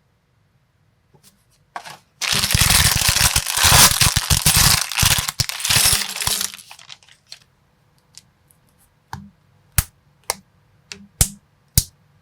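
Small plastic building bricks and minifigure parts clattering and rattling densely for about four seconds as they are handled, then about five separate sharp plastic clicks near the end as pieces are set down or snapped together.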